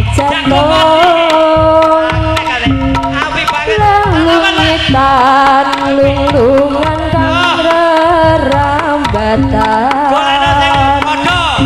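Javanese jaranan music amplified through a sound system: a steady hand-drum pattern under a held, ornamented melody that wavers and glides in pitch.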